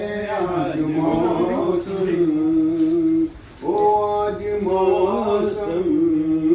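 A man's voice singing long held, wavering notes in two phrases, with a short pause about three and a half seconds in.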